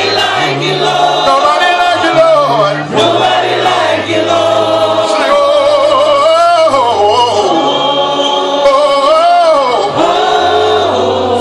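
Gospel worship song sung by a congregation, led by male singers on microphones through loudspeakers, with voices in several parts and a low bass line moving in steady steps beneath them.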